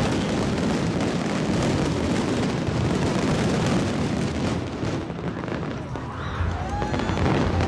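Fireworks salute going off overhead: many bursts overlapping into a continuous crackling din.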